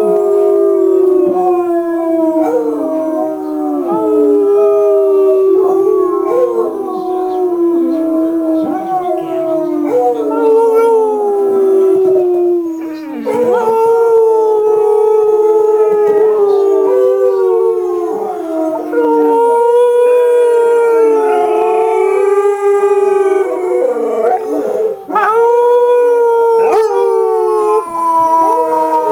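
Basset hounds howling in long, wavering howls, with only a short dip about halfway through. The howling of a basset hound playing from a video runs throughout, and in the second half a live basset hound howls along with it, so two howls overlap.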